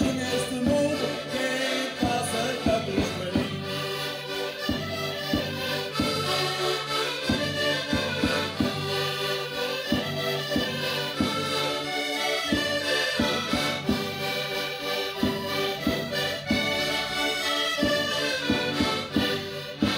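Several diatonic button accordions (concertinas) playing a Portuguese folk tune together, over a steady beat on a bass drum.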